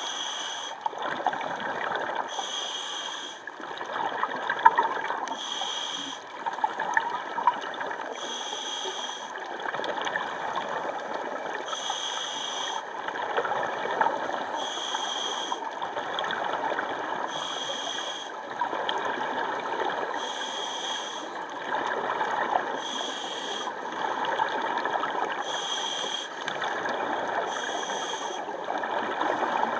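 A scuba diver breathing through a regulator underwater: a short hiss of breath comes about every two and a half to three seconds, over steady gurgling and crackling bubble noise.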